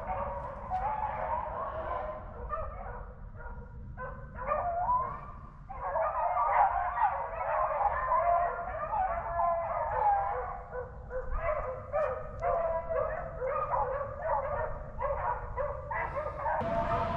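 A pack of beagles baying and yelping together, several voices overlapping: the hounds running a rabbit on the scent.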